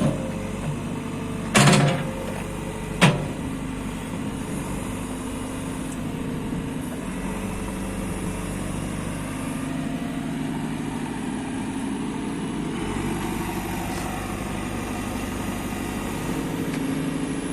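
Diesel engine of a JCB 3CX backhoe loader running steadily, with two loud knocks, one about a second and a half in and a sharper one about three seconds in.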